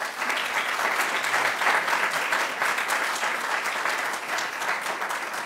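Audience applauding steadily, the clapping tapering off near the end.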